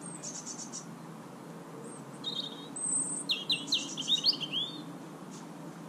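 Small songbirds singing: a short high phrase at the start, then a busier run of quick chirping notes from about two to nearly five seconds in, over a steady low background hum.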